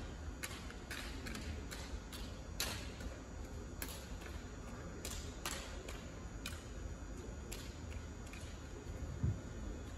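Drill rifles being handled by a drill team: scattered light clicks and taps of hands striking and gripping the rifles, at irregular intervals, a dozen or so in all.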